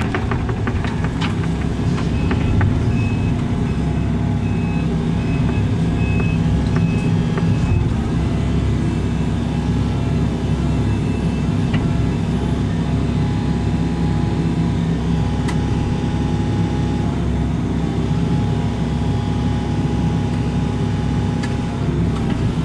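Excavator's diesel engine running steadily under hydraulic load, with a string of short high beeps for several seconds near the start and a few sharp knocks.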